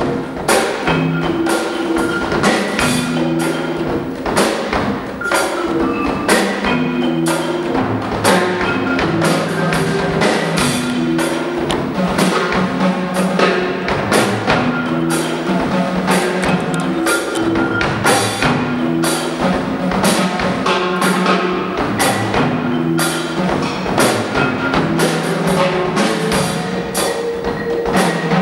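Percussion ensemble playing: marimba, drum kit and congas in a busy rhythmic groove. Dense, sharp drum and stick strokes run over a low pitched figure that repeats about every two seconds.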